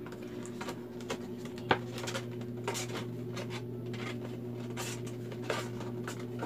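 A thin paperboard face-mask box being handled, its flaps folded and pressed: a run of short scrapes, taps and crinkles, with one sharper tap about two seconds in. A steady low hum sits underneath.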